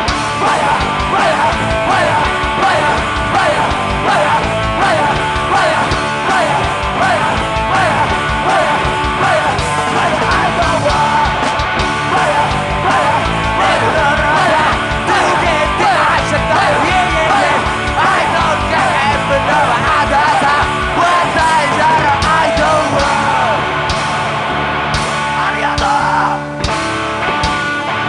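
Rock band playing a fast, loud song with distorted guitars, drums and shouted vocals; the vocal lines drop out and the band shifts briefly about 26 seconds in.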